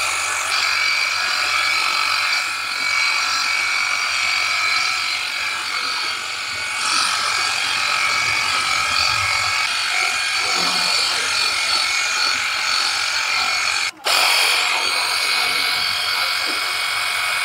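Cordless battery pressure washer (Xenon HPW2160) running: its small electric motor and pump whine steadily while the fan-spray nozzle hisses water onto car body panels. The sound cuts out for a moment about 14 seconds in, then carries on.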